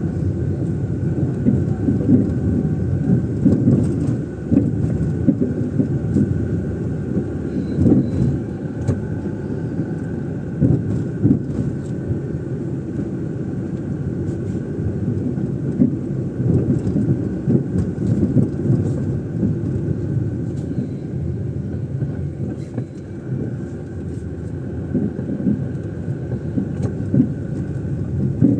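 A car driving: a continuous low rumble of engine and road noise that swells and dips unevenly, with faint small knocks here and there.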